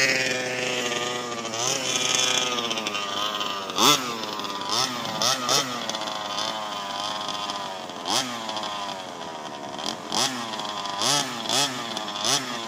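Small gas engine of a freshly rebuilt baja running and being revved in repeated short throttle blips, its pitch rising and falling again and again, with a quick run of blips near the end.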